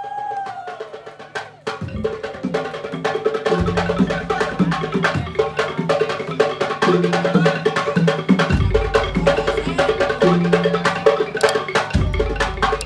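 Madurese tong-tong ensemble playing: a dense, fast clatter of wooden slit drums over heavy bass-drum strokes, with a sustained melodic line. The percussion builds in over the first two seconds.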